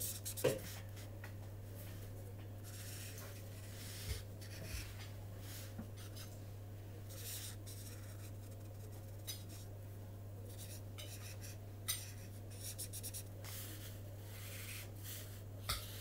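Marker tip scratching across paper in a run of short strokes as an area of hair is coloured in, with a few light knocks between strokes. A steady low electrical hum runs underneath.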